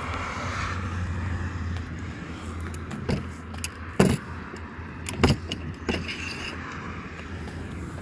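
Sharp metallic clicks and knocks from the telescopic aluminium handles of a Yato manual hydraulic crimping tool as they are worked and the extension locks into place: four clicks between about three and six seconds in, over a steady low background rumble.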